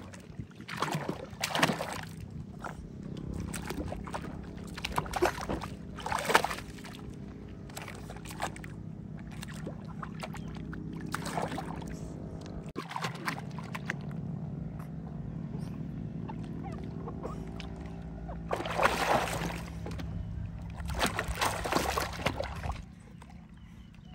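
Soapy water splashing and sloshing in a plastic basin as a baby monkey thrashes about in it, in repeated short bursts of splashes over a steady low hum.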